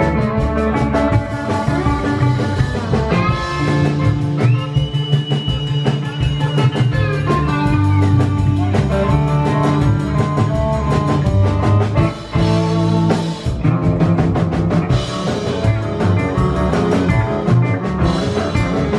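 Live honky-tonk country band playing an instrumental passage: pedal steel guitar and electric guitar over upright bass and drums. A high sliding note rises about four seconds in, is held, and slides back down about four seconds later.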